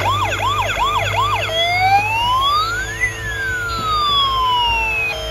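Electronic siren sounds from battery-powered toy fire trucks: a fast repeating whoop, about two and a half a second, that changes about a second and a half in to slow wails rising and falling in pitch, two of them overlapping.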